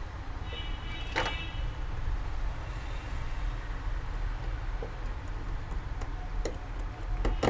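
A few light clicks and taps of a smartphone's back cover being handled and fitted into place, the strongest about a second in, over a steady low hum.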